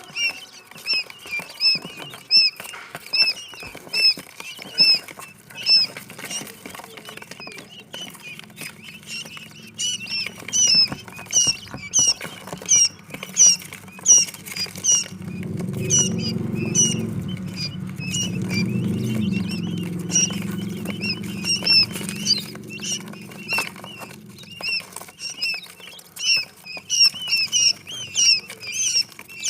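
Quail chicks peeping over and over, a few short high chirps a second, with scattered light clicks. A low hum comes in about halfway and fades out again a few seconds later.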